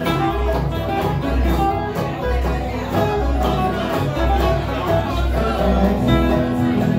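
Live bluegrass played on acoustic string instruments, acoustic guitar with fiddle, mandolin and banjo, over a regular low beat.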